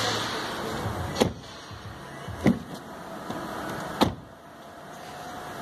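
Three sharp knocks, about a second and a half apart, over a low steady background noise.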